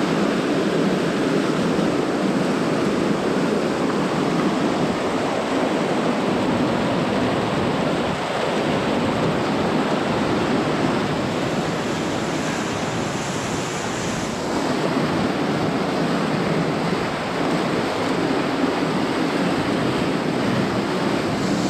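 Rushing mountain creek: whitewater pouring steadily over rocks.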